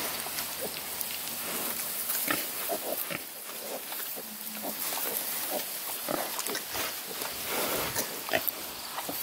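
Pigs grunting: a sow and her newborn piglets, many short grunts in quick succession.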